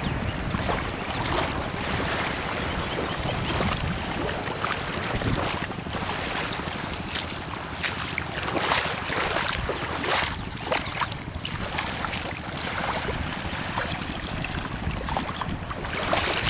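Wind rumbling on the microphone over shallow river water lapping and splashing, with irregular louder splashes from feet and bodies moving through the water.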